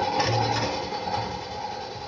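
Pneumatic pail crimping machine: a short hiss about a quarter second in, over a steady hum with several held tones that fades towards the end.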